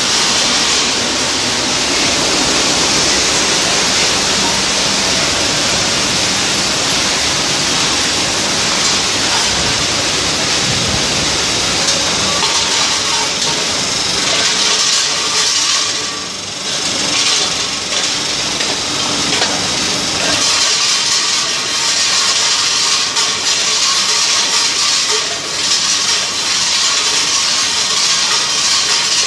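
Canning production line running: a loud, steady hissing din of machinery and can conveyors, dipping briefly around the middle.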